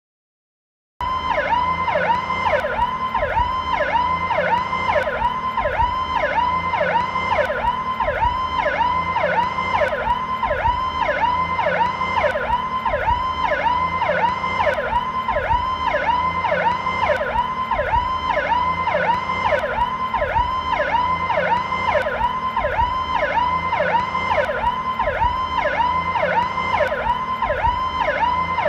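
Police siren sounding the slow Powercall tone: a repeating whoop that sweeps up to a peak and drops back, about two cycles a second, with a low steady hum underneath. It starts about a second in.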